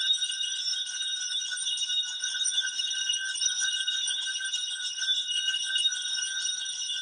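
Small altar bells shaken without a break, a steady high jingling ring. This is the ringing that accompanies the blessing with the monstrance at Eucharistic benediction.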